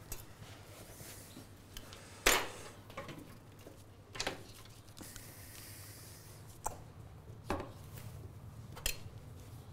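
Scattered knocks and clinks of a knife and utensils on a wooden cutting board, about five separate strikes with the loudest a couple of seconds in, over a low steady hum.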